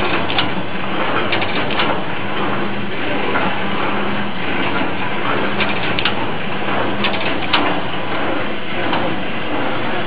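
Automatic cashew shelling machine running: a steady mechanical clatter with frequent irregular sharp cracks as the nut shells are split.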